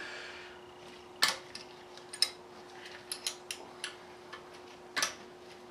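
Hand ratchet clicking as 8 mm bolts are worked out of a Cummins cylinder head: irregular light metallic ticks with a few sharper clacks, about a second in, at about two seconds and near the end, over a faint steady hum.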